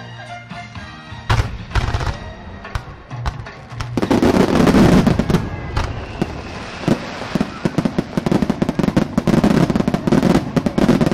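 Fireworks display: accompanying music fades out in the first second, a few sharp aerial shell bursts follow, and about four seconds in a loud, dense barrage of shell bursts and rapid crackling starts and keeps going.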